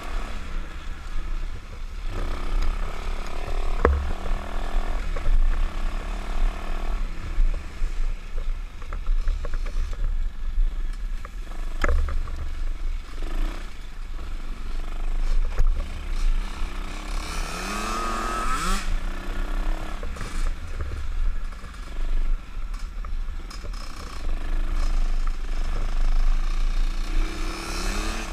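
125cc pit bike engine running under way on a dirt trail, over a heavy low rumble of wind on the helmet-mounted microphone. The revs rise in pitch about two-thirds of the way through and again near the end. Two sharp knocks come about 4 and 12 seconds in.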